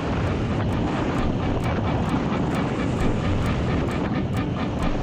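Dirt bike engine running steadily under way on a gravel road, mixed with wind rushing over the helmet-mounted microphone.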